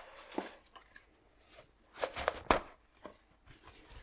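Paper towel being handled over a workbench: a soft rustle at the start, then a quick cluster of crinkles and light clicks about two seconds in.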